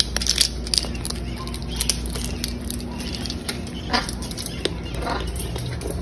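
Blue-and-gold macaws cracking peanut and sunflower seed shells with their beaks: irregular sharp clicks and crunches, with two short louder noises about four and five seconds in.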